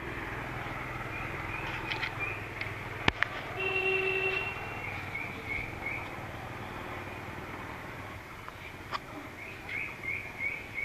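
Outdoor ambience with a steady low rumble. A vehicle horn toots once for about a second, a few seconds in. Quick runs of high repeated chirps come at the start and again near the end.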